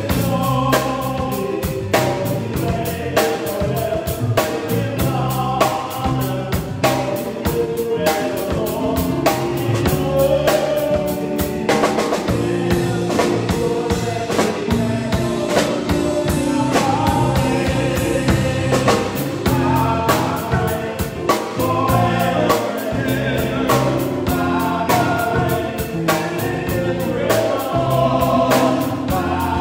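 Gospel music: voices singing together over drums keeping a steady beat.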